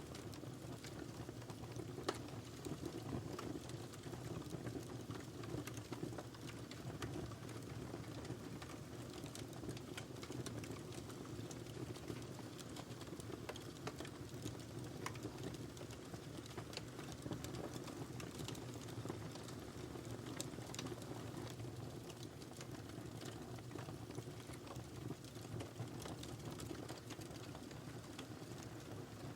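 Wood fire burning in a fireplace: a steady low rush of flames with irregular small crackles and pops, one louder pop about two seconds in.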